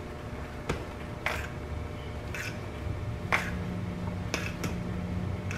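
Metal utensil stirring cooked rice in a glass bowl, with a short scrape or clink against the glass about once a second. A low steady hum comes in about halfway through.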